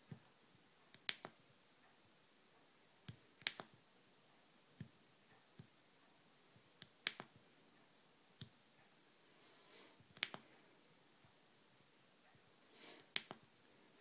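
Sharp clicks of a small Gadgeteer thumb joystick module being worked, its push button pressed to select menu options, one every second or two, often in quick pairs or threes.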